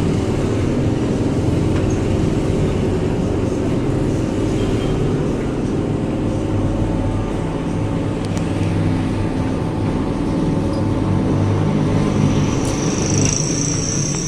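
Engine lathe running, its motor and gears giving a steady dense hum as a steel pipe turns against the cutting tool. A thin high whine comes in near the end.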